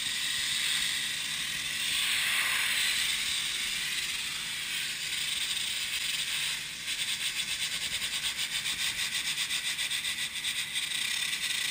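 High-pressure water jet from a pressure-washer lance hissing against the fins of a ship's cooler core as the acid-cleaned surface is washed down. About halfway through the sound turns into a rapid, even pulsing of several beats a second.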